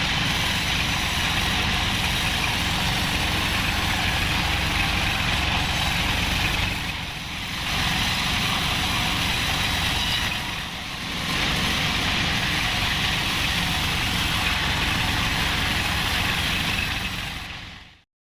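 Sawmill bandsaw running with a steady engine drone and the hiss of the blade cutting through an acacia log. The sound eases off briefly twice and fades out sharply at the end.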